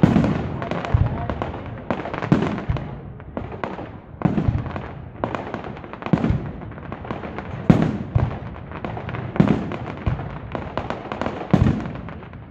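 Aerial firework shells bursting in quick succession: a loud bang every second or two, with crackling and popping between them.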